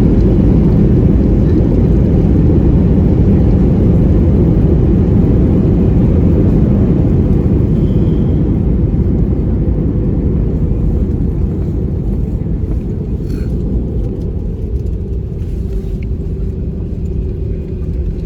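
Cabin noise of an Airbus A321 rolling out on the runway after touchdown: a loud, deep rumble that slowly fades as the airliner slows. A steady hum comes through more clearly in the second half.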